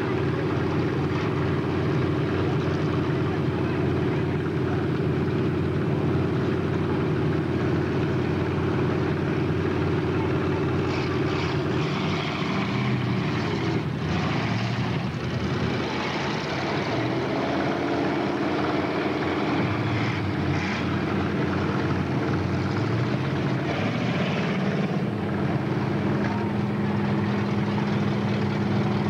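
Stock car engines running at low speed, a steady drone, with pitch rising and falling through the middle as engines rev or cars pass, then settling to a steady lower note near the end.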